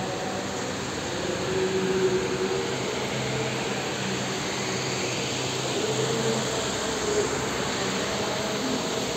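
Steady rushing air noise of electric pedestal fans running in a large hall.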